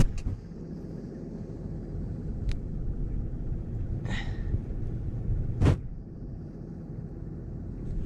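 A tractor engine running steadily with a low rumble, left on raised revs while stopped. A few sharp clicks cut through it, the loudest about five and a half seconds in, with a brief squeak at about four seconds.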